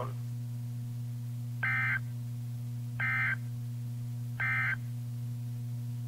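Emergency Alert System end-of-message code on weather radio: three short digital data bursts about 1.4 seconds apart, marking the end of the alert, over a steady low hum.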